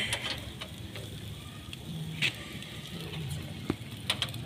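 Sporadic faint clicks and crackles over a low background hiss from a charcoal grill cooking fish tikka on metal skewers.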